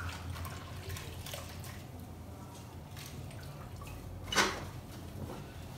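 Small water sounds and drips as a wet cloth is dipped in a bowl of soapy water and worked over the bassinet's straps, with one short, sharper noise about four seconds in, over a low steady hum.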